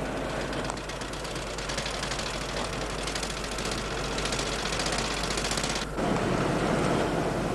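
Motorcycle with sidecar running fast with a rapid, even engine rattle. About six seconds in it gives way abruptly to a lower, steadier engine-and-road rumble heard inside a car's cabin.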